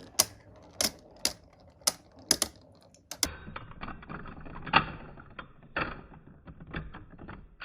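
Two Beyblade Burst spinning tops clashing in a plastic stadium: irregular sharp clicks, roughly one or two a second, as they strike each other.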